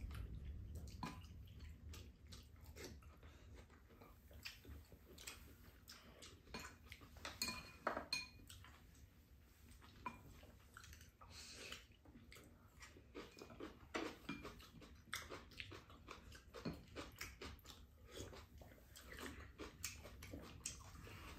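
Quiet eating sounds: chewing, with spoons and chopsticks clicking now and then against bowls and a plastic container.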